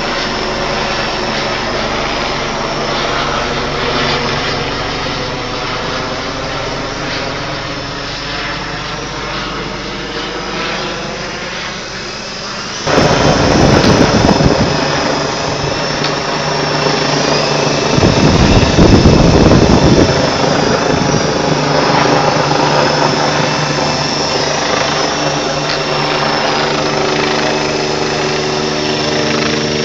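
Electric motors and geared coaxial rotors of a Flying Gadgets T43 RC toy helicopter in flight, a steady whine whose pitch wavers up and down with the throttle. About halfway through, a louder low rumble breaks in, strongest twice, over the whine.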